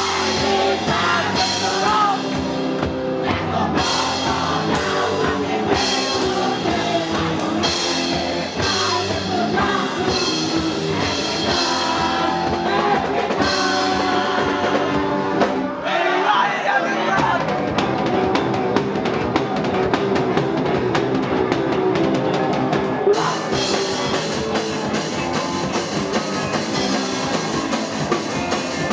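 A live band playing an upbeat song with drums and singing. The bass drops out for about a second about halfway through, then the full band comes back in.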